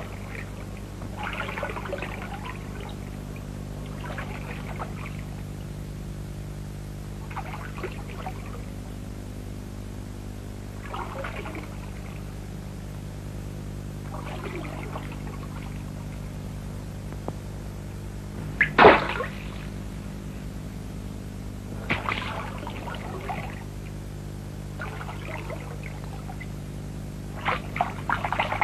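Water splashing or being poured in short bursts every few seconds, with one louder splash about two-thirds of the way in, over a steady low electrical hum.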